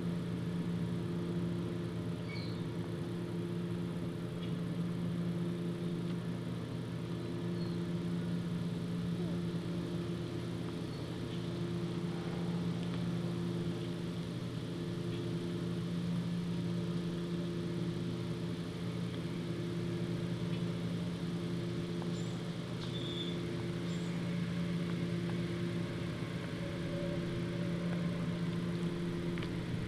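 Steady low mechanical hum holding a constant pitch, with a few faint, short high chirps over it.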